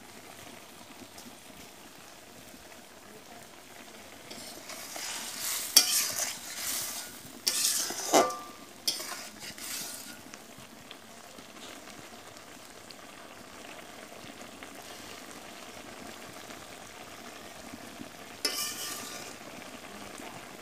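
Small-fish bhuna sizzling in a wide metal pan, with a spatula stirring and scraping against the pan. The stirring comes in loud bouts from about four to ten seconds in and once more briefly near the end, over a steady faint sizzle.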